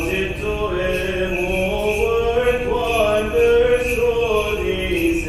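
A cantor chants an Orthodox vespers hymn in long, slow, melismatic held notes. The melody climbs through the middle and falls back near the end.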